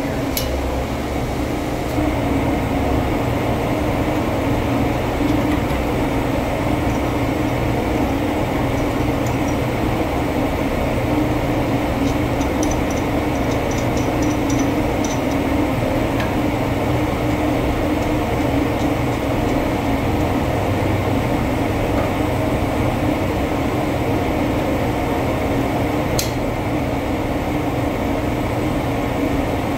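Steady mechanical drone of a 100-horsepower steam boiler plant running, a constant hum with a rushing noise. A sharp click comes just after the start and another near the end.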